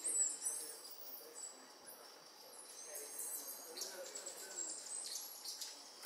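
High-pitched chirps and short gliding whistles of forest animals, a cluster right at the start and another around four to five seconds in, over a steady forest background.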